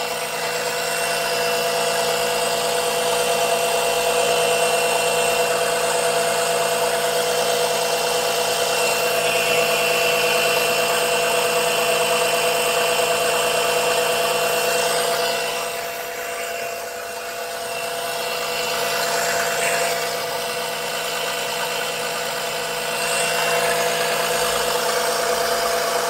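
Small electric oil-suction pump motor running steadily, with a constant hum and high whine and a short dip in level about two thirds of the way through. It is not strong enough to pull enough vacuum to draw out the thick 10W-40 engine oil.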